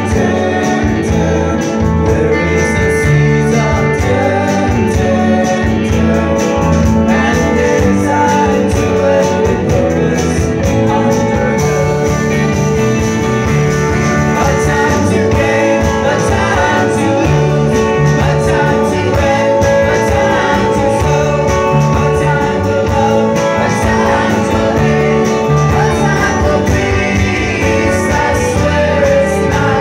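Live band playing a country-folk song with acoustic and electric guitars and fiddle, several voices singing together over them.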